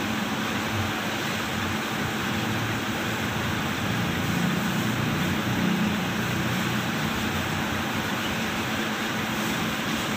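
2012 Mitsubishi Strada Triton's diesel engine idling steadily, heard from inside the cab with the air-conditioning fan blowing. It is under the load of all the lights and the air conditioning, a test for its abnormally rising temperature gauge.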